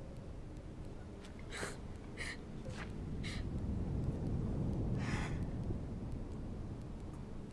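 A woman's ragged, gasping breaths after delivering a stillborn baby: four short gasps come close together a second or two in, then another about five seconds in. A low rumble swells beneath them in the middle and fades.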